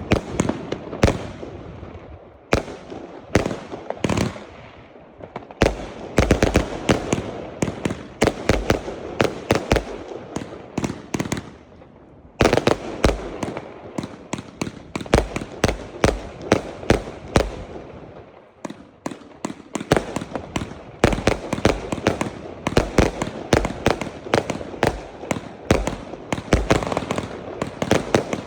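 Argento Minerva fireworks going off in rapid volleys of bangs and crackles, several a second. There are short lulls about 5, 12 and 19 seconds in before the next run starts.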